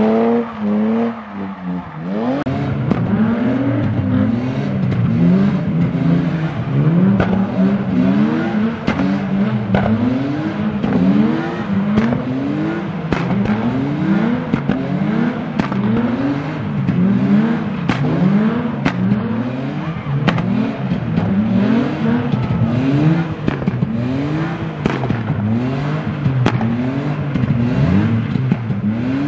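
Car engine revving up and dropping back about once a second, over and over, as the car drifts in tight circles, with sharp crackles throughout.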